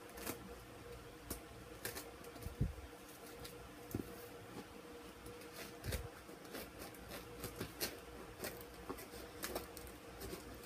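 Scissors cutting and picking at packing tape on a cardboard box: scattered snips, scrapes and tape crinkles, with a couple of dull knocks against the cardboard.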